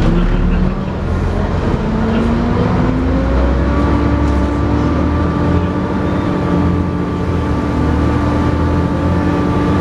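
Volvo B7TL double-decker bus's six-cylinder diesel pulling hard: the engine note climbs about two seconds in, then holds steady with the whine that enthusiasts call the "hoover".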